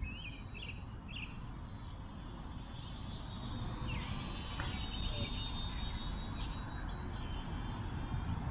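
Thin high whine of a mini RC airplane's electric motor and propeller in flight, growing louder toward the middle and then fading, over wind rumble on the microphone with birds chirping.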